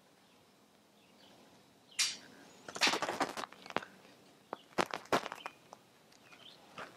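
Hand handling noise as a tire-pressure monitoring sensor is threaded onto a truck tire's valve stem. About two seconds in there is a short hiss of air escaping from the valve. Rustling and a series of small clicks and taps follow as the sensor is screwed on.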